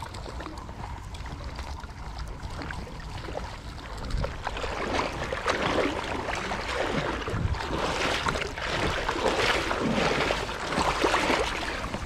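Shallow river water splashing and sloshing unevenly, louder from about four seconds in.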